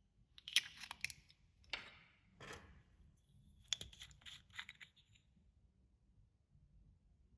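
Clear slime being worked by hand, giving several short bursts of sticky crackling and clicking, the loudest about half a second in and again near four seconds in.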